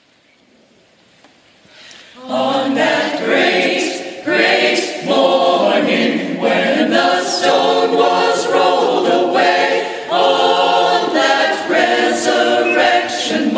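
Church choir of mixed men's and women's voices singing a choral introit. The singing comes in about two seconds in, after a faint opening.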